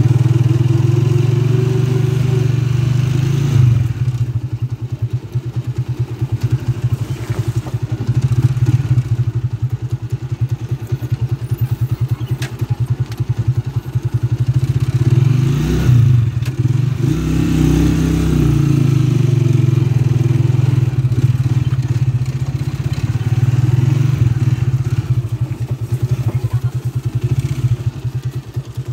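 Small motorcycle engine running steadily with a low, fast pulsing; its pitch dips and comes back up briefly about halfway through.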